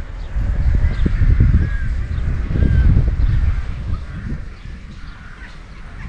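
Birds calling in short chirps over a gusty low rumble of wind on the microphone; the wind swells loudest about one and three seconds in, then eases.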